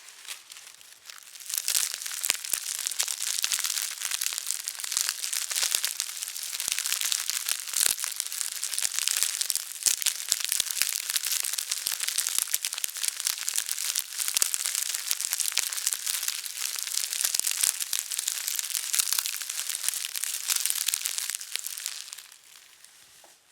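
A small straw broom twisted and worked gently in the hands, its straws giving a dense, continuous crackle: a foley imitation of a crackling fire. It starts about a second and a half in and dies away shortly before the end.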